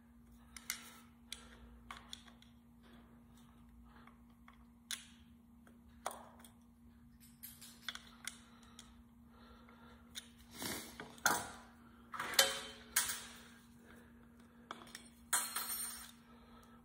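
Screwdriver and small plastic and metal parts of a hose reel's electric rewind motor clicking, tapping and scraping as plastic caps are pried out, with a cluster of louder clacks about ten to thirteen seconds in and again near the end. A steady low hum runs underneath.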